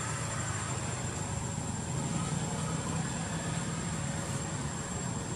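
A steady low engine drone, with a thin, steady high-pitched tone above it.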